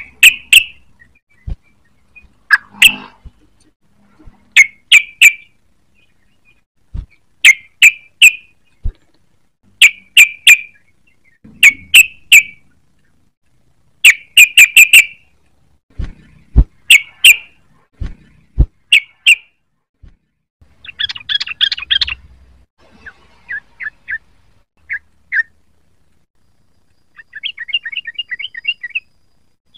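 Trucukan (yellow-vented bulbul) calling: sharp, loud chattering notes in quick clusters of two to four, repeated every second or two. From about two-thirds of the way in, the notes change to faster rapid-fire trills.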